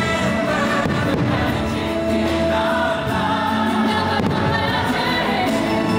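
Holiday music from the fireworks show soundtrack, with a choir singing.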